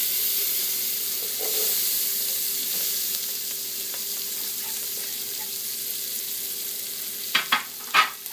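Chopped onion and garlic hitting hot olive oil and butter in a pan: a loud sizzle that starts suddenly and eases off gradually. A few sharp knocks near the end.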